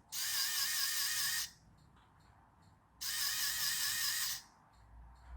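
Small electric motor and plastic gearbox of a toy line-follower car whirring in two bursts of about a second and a half each, with a wavering whine. The car is being run on more than its usual 1.5 volts, and only one of its two motors works.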